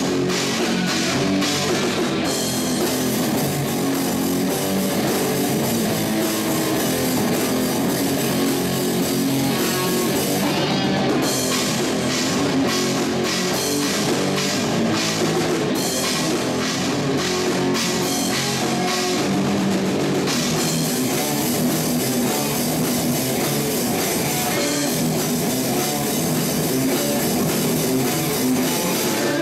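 Heavy rock band playing live: electric guitars over a drum kit, loud and steady. For a stretch in the middle the cymbals thin out to separate hits.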